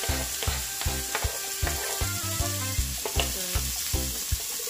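Sliced bell peppers, onion and scotch bonnet sizzling as they hit hot oil and butter in a cast-iron skillet. A wooden spatula clicks and scrapes against the pan as they are stirred.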